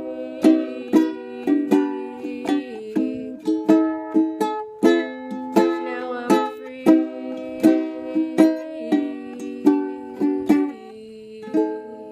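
Ukulele strummed in a steady rhythm of chords, about two to three strokes a second, playing the closing bars of a song. The last chord comes about eleven seconds in and is left to ring out and fade.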